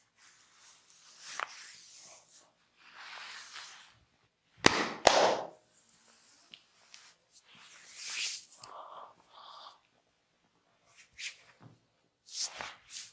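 Hands rubbing and scratching over skin and hair during a massage, in soft rustling swells. Two sharp, loud snaps come close together about five seconds in, and a few shorter crisp ones come near the end.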